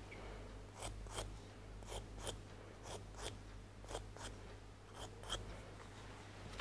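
Tip of a rubber-bulb slip trailer scratching lightly across a dry clay bowl as coloured slip is trailed on: faint short scratches, mostly in pairs, about one pair a second.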